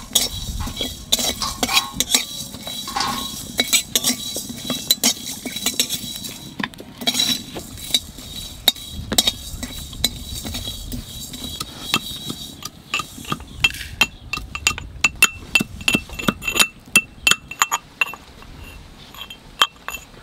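A metal spatula scrapes and stirs whole spices dry-roasting in an aluminium wok, with many light scrapes and clinks. About two-thirds of the way in, this gives way to a run of sharp, separate clicks with a slight ring as a blade chops ginger on a clay plate.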